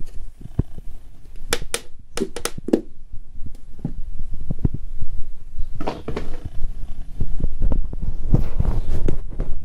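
Irregular clicks and light knocks of plastic being handled, over a low rumble.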